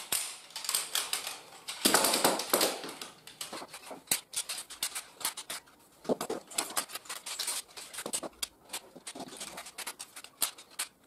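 Metal tube legs of a folding camping cot being fitted together by hand: a run of light clicks, knocks and rattles as the tubes seat into their joints, busiest about two seconds in.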